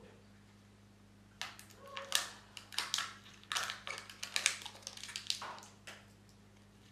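Foil lid being peeled off a plastic Kinder Joy egg tray, a run of crinkling crackles and clicks starting about a second and a half in.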